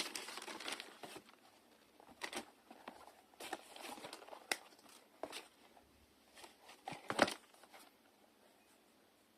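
Packaging crinkling and rustling as a new pair of football boots is unboxed. A dense crinkle in the first second gives way to scattered short rustles and taps, the loudest about seven seconds in, then it dies away.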